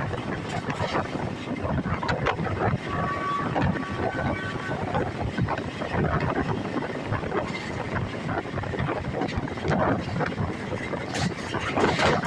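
Steady rumble and rush of air from a moving express passenger train, heard on board. A faint steady tone, like a distant horn, sounds briefly about three seconds in.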